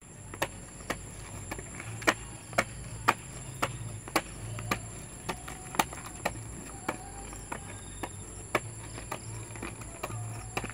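Skateboard on rough pavement: its wheels knock down on the ground about twice a second in a regular rhythm as the board is pivoted back and forth, over a low rolling rumble. A steady high whine runs underneath.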